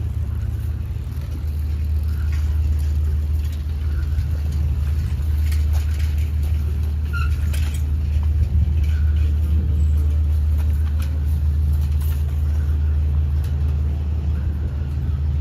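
Steady low drone of a ferry's engine, unchanging throughout, with a few faint clicks and knocks over it.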